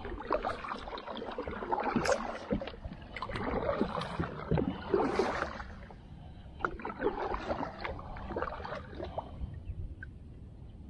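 Kayak paddle strokes: the blades dipping and pulling through the water with splashing and dripping, in about three bursts a few seconds apart, over a low steady rumble.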